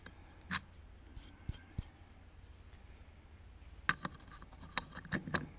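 Light clicks and taps of a dry vacuum pump's carbon rotor and vanes being fitted by hand into its metal housing. There is one click about half a second in and a quick run of clicks in the last second and a half, over a low steady hum.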